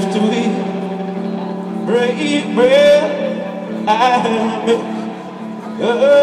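Live band playing: electric guitars holding sustained chords, with a man singing short phrases starting about two seconds in.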